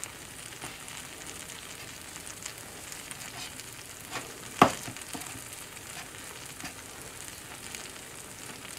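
Minced onions sizzling in butter in a frying pan: a steady hiss with small crackles. A single sharp click about four and a half seconds in.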